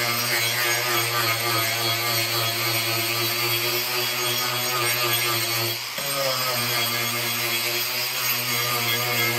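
Ryobi angle grinder running with a disc pressed into the edge of a walnut board, a steady motor whine over wood grinding as the square edge is carved into a natural edge. About six seconds in the sound dips briefly, then the motor's pitch rises back up.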